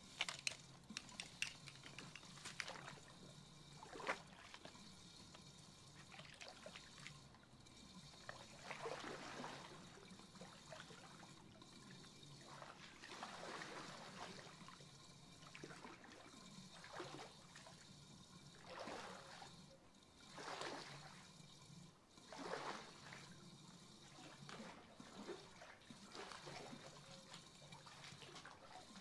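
Faint swishing and sloshing of pool water as a brush on a long pole is pushed along the liner, loosening algae, in strokes that come every second or two.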